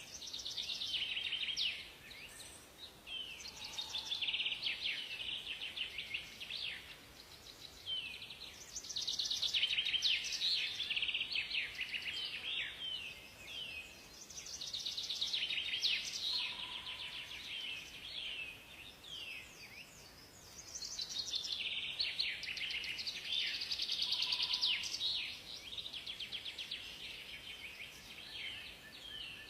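Songbirds singing together in a forest, a dense mix of rapid chirping trills and short phrases that swell and fade in waves every few seconds.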